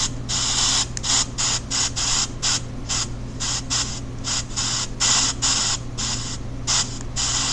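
Pink noise from an EVP ghost-hunting app, played loud and chopped on and off at an uneven pace, about twice a second, with a steady low hum underneath.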